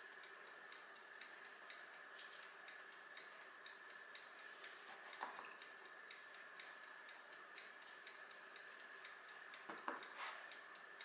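Near silence: faint steady ticking with a faint high hum under it, and two soft knocks, about five and ten seconds in.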